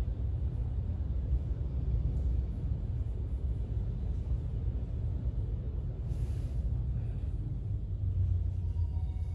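Muffled, steady low rumble of city traffic heard through an office window. A short hiss comes about six seconds in.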